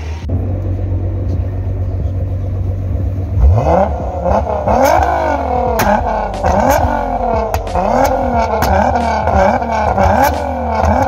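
A car engine idling, then from about three and a half seconds in revved hard over and over, its pitch climbing and dropping back less than a second apart, with sharp cracks among the revs.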